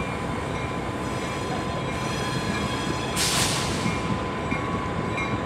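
A train rolling past with a steady heavy rumble, brief high squeals from the wheels, and a short burst of hiss about three seconds in.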